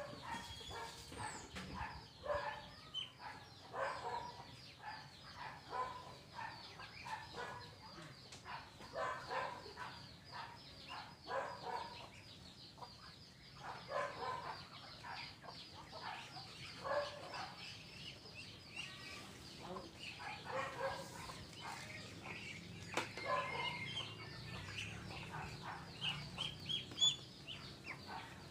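A flock of Muscovy ducks making short, repeated calls, several a second, with a few higher chirps near the end.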